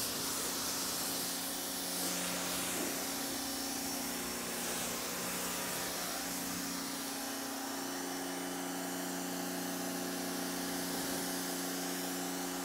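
An 1800 W electric pressure washer running steadily: the motor and pump hum while the wand's jet hisses against a car's body.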